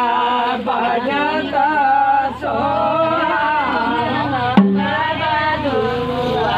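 Several women singing a folk ritual song together, with one sharp stroke on the mandar drum about four and a half seconds in.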